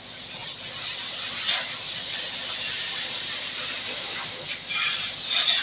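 Steady hiss of a cleaning spray jet of water or chemical solution, as used for washing an air-conditioner blower, running without a break.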